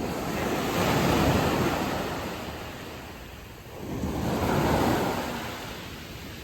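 Ocean waves breaking on a beach, two surges of surf, one about a second in and another near five seconds, each washing in and fading.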